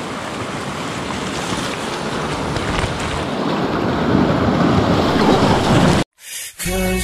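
Sea waves surging and breaking over basalt shore rocks, with wind buffeting the microphone. It grows louder as a wave washes up and splashes close by, then cuts off abruptly about six seconds in.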